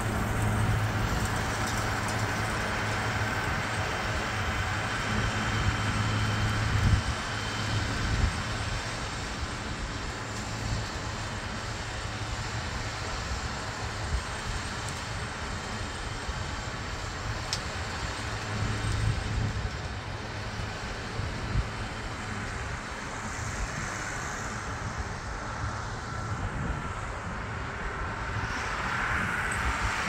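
Farm tractor engine running steadily while pulling a round baler picking up hay, a continuous mechanical rumble with a low hum that swells as the machine passes closer.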